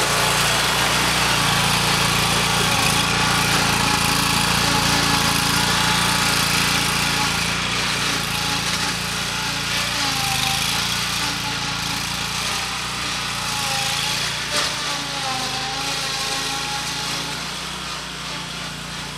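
Zero-turn riding mower's engine running steadily while the mower drives away across a steep slope, growing gradually fainter. There is a brief knock about three-quarters of the way through.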